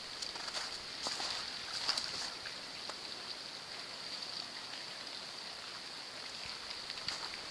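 Steady rushing hiss of river water running through and under an ice jam. A few crunching footsteps in snow come in the first two seconds.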